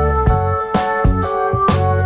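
Instrumental background music: sustained keyboard-like notes over a steady beat.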